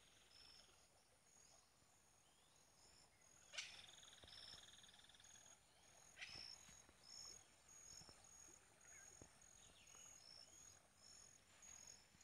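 Near silence: faint insect chirping, short high chirps repeating steadily about twice a second, with a brief buzzy trill about three and a half seconds in and a few soft clicks.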